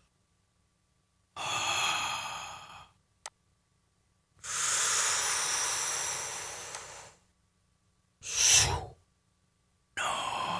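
A series of mouth-made sound effects, recorded dry and unprocessed, with silence between them: a breathy whoosh, a tiny click, a longer hiss that slowly fades, a short sharp puff (the loudest), and another breathy whoosh starting near the end.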